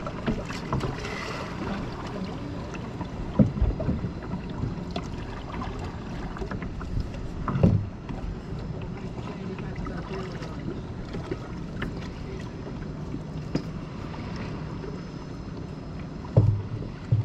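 Kayak on the water at night: paddle strokes and water moving against the hull, with three short, louder knocks.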